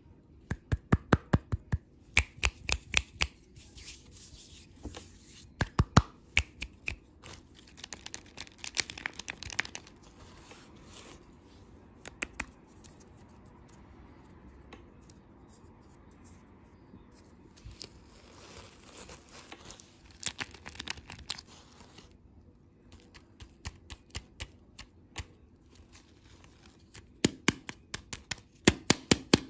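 Plastic candy packaging being handled and torn open by hand: bursts of sharp crackling clicks, with quieter pauses between them.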